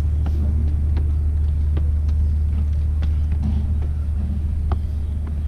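A steady low rumble, with light knocks of footsteps scattered through it as someone climbs wooden stairs.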